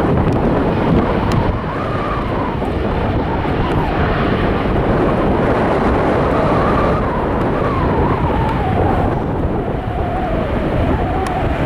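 Jet airliner's engines passing, a wavering whine that slowly falls in pitch, over heavy wind buffeting the microphone.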